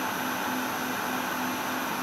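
Industrial machine running steadily: a dense mechanical whir and hiss, with a low tone pulsing about three times a second.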